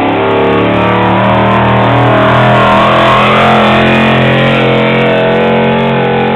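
Pickup truck's engine running flat out at a steady high pitch under heavy load as it drags a truck-pulling sled down the track.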